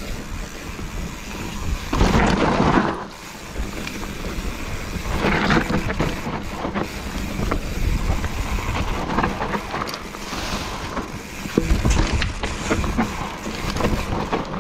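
Wind buffeting the microphone over the rumble and clatter of a mountain bike riding a dirt trail, with loud gusts about two and five seconds in and again near the end.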